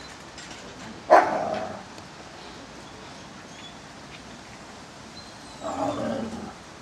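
Eastern timber wolves squabbling: a sharp bark-like yelp about a second in, then a lower, longer snarling outburst near the end.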